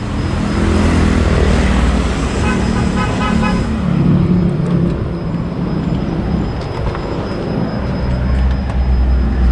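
Roadside traffic rumble with wind and handling noise on a handheld camera microphone, and a short chopped high-pitched tone about three seconds in. A few light clicks follow near the end.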